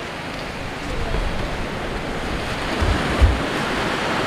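Sea surf washing on the shore, with wind buffeting the microphone and a couple of low thumps of it near three seconds in.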